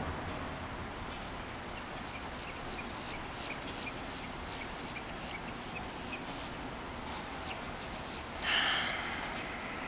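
Outdoor ambience with small birds chirping in quick short notes over a steady background hum. A sudden, louder burst of noise comes a little after eight seconds in and fades within about half a second.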